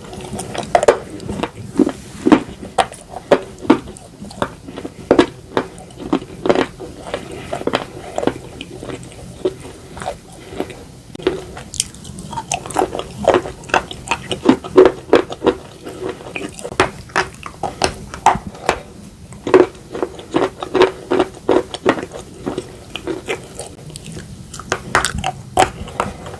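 Close-miked biting and chewing of edible slate: a string of sharp, crisp crunches, one to three a second, with a short sparser pause around the middle.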